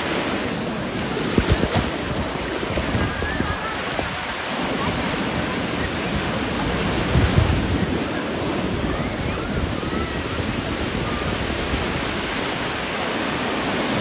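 Small waves breaking and washing through the shallows at a sandy beach, a steady surf noise, with wind buffeting the microphone in gusts about a second and a half in and again about seven seconds in.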